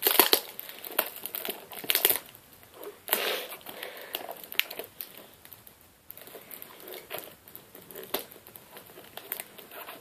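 Packaging being torn open and crumpled by hand: irregular crinkling and ripping, busiest in the first few seconds and then sparser.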